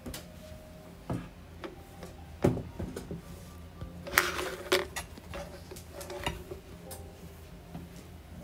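Mahjong tiles clacking as players draw and discard on the mahjong table: a handful of separate sharp clicks, with a quick cluster around four seconds in that is the loudest.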